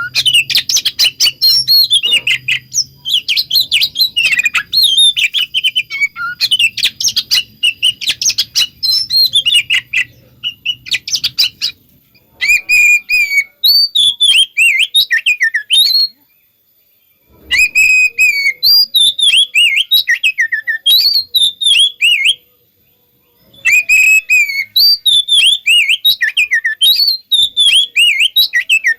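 Oriental magpie-robin singing loud, rapid, varied chirps and whistles. The first half is a dense run of calls mixed with sharp clicking notes; after that come repeated phrases broken by two short pauses.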